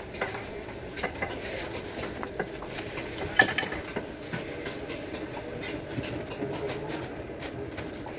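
Irregular clinks and knocks of a metal ladle against a soup pot and bowls as soto is dished up at a street stall, with one sharp clank about three and a half seconds in, over a steady background hum.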